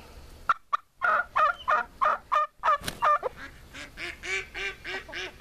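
Backyard poultry calling: a run of short, sharp squawks about a second in, then a quicker series of lower, shorter calls from about three seconds on.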